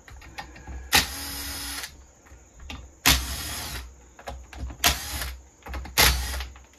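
A small handheld power tool run in four short bursts, each under a second long.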